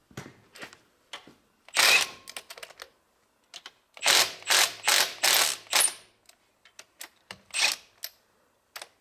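Hand socket ratchet clicking in short runs as bolts are worked loose, with scattered metal clinks of tools between the runs.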